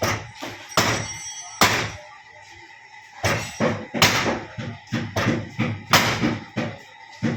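Hammer blows on car body sheet metal: three sharp strikes, a pause of about a second, then a quicker irregular run of strikes, two or three a second.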